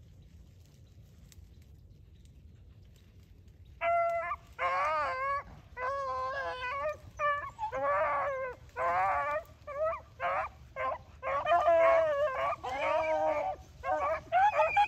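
Rabbit beagles baying in repeated drawn-out calls, starting about four seconds in: hound music as the pack runs a rabbit's track.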